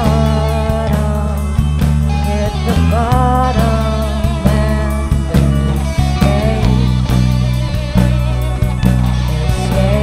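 A live rock band playing a song: electric guitar, electric bass, keyboard and drum kit, with long, bending melody notes over a steady bass line and regular drum hits.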